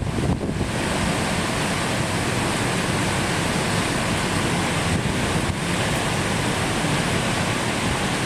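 Typhoon wind gusting and rumbling across the microphone, over a steady rush of heavy rain and the surging, flood-swollen river.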